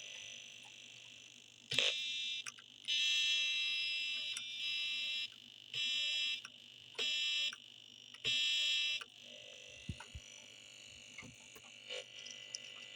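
Electronic buzzer of a Znatok snap-together circuit kit sounding a harsh alarm-like tone in five separate bursts of different lengths, the longest about two seconds, with a fainter tone lingering between and after.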